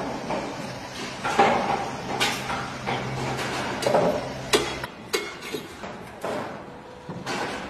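Metal shovel scraping across a concrete slab and scooping up clumps of dirt and mortar debris in a series of short, uneven strokes. A low steady hum runs underneath and stops about five seconds in.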